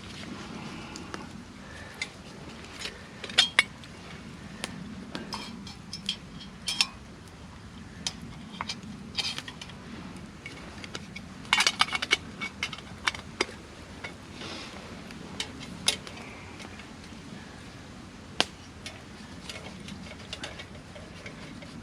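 Camp cookware and utensils being handled: scattered clinks and knocks of metal, with a quick run of them about halfway through.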